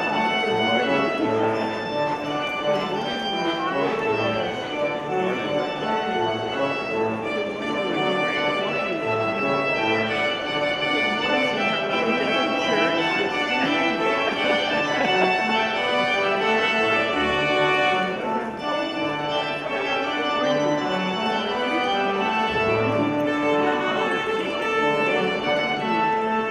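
Church organ playing music: sustained chords that move on every second or so without pause.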